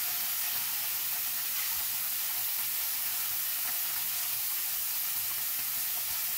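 Beef strips searing in hot oil in a stainless steel pan over high heat, giving a steady sizzle as they are stirred with a silicone spatula.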